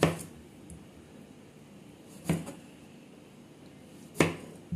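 Knife slicing through a tomato and knocking on a cutting board: three sharp chops about two seconds apart.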